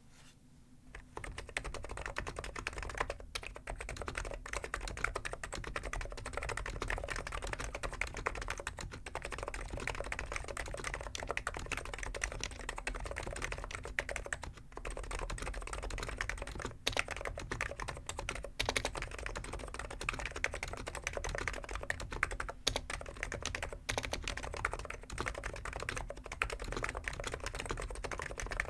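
Fast continuous typing on a Hansung GK893B keyboard with stock, unlubed 50 g electro-capacitive (Topre-style) switches: a dense run of keystroke clicks starting about a second in, with a few short pauses.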